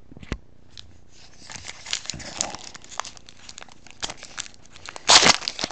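Plastic wrapper of a football trading card pack being torn open and crinkled, with small clicks and rustles and a louder crinkle about five seconds in.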